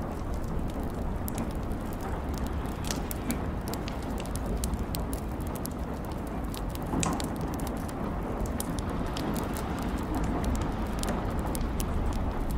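Rain: a steady low rumble and hiss with many scattered, irregular sharp ticks of drops.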